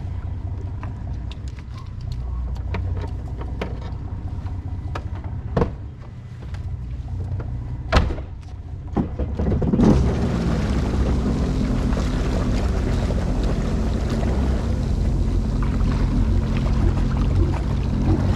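Sea-Doo Fish Pro personal watercraft engine idling steadily alongside the dock, with a few sharp knocks, the loudest about eight seconds in. About ten seconds in a rushing noise joins the engine as the craft pulls away at low speed.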